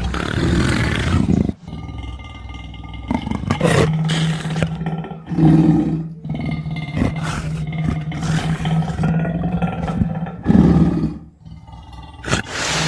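Big cat roaring in a string of separate calls. There is a short break about a second and a half in and another near the end.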